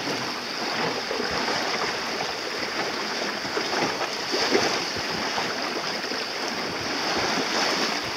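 Water rushing and splashing along the hull of a sailing boat under way: a steady wash with small irregular splashes.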